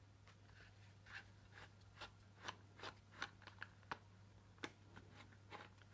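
Faint scattered clicks and light taps, a dozen or so short ones, from a cordless hammer drill's plastic housing and fitted side handle shifting as it is handled and turned in the hands, over a low steady hum.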